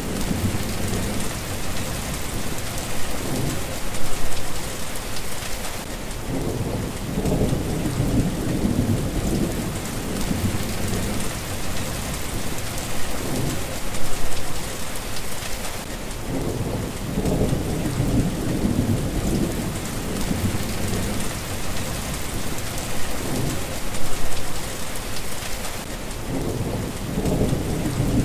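Steady rain falling, with low rolling thunder rumbling again and again, swelling about every ten seconds.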